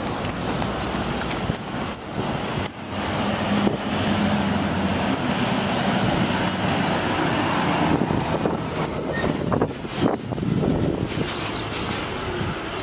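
Heavy utility bucket trucks driving past in street traffic, with a steady low engine hum over road noise.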